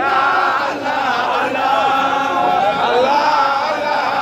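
A large crowd chanting together, many voices holding and bending long notes over the noise of the throng.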